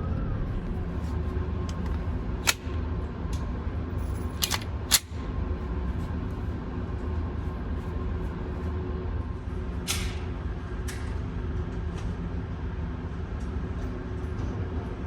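A steady low mechanical hum with a few sharp clicks over it; the loudest click comes about five seconds in, and a longer rasp comes near ten seconds.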